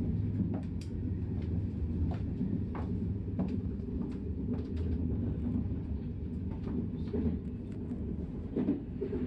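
Moving passenger train heard from inside the carriage: a steady low rumble of the wheels and running gear, with scattered sharp clicks.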